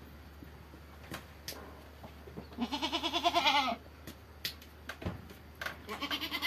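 A goat bleating: one long, wavering call about two and a half seconds in, lasting about a second, with a few light knocks of wood and tools around it.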